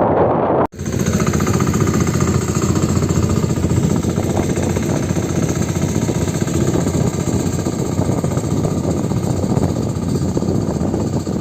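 A sanedo, a home-built farm tractor driven by a motorcycle engine, running steadily with a fast, even thumping beat. It cuts in sharply under a second in, after a short stretch of wind on the microphone.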